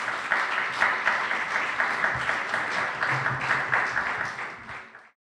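Audience applauding, a dense patter of many hands clapping that fades near the end and then cuts off.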